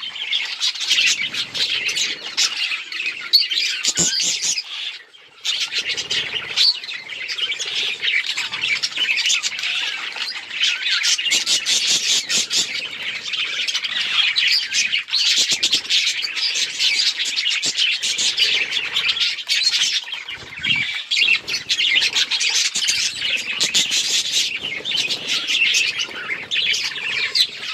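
A group of budgerigars chattering continuously with fast warbling chirps and squawks, briefly dropping off about five seconds in.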